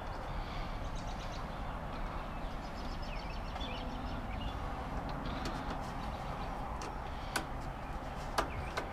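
Birds chirping over a steady outdoor background, with two sharp clicks from hand tools working on the lawn tractor's engine, a little over seven and about eight seconds in.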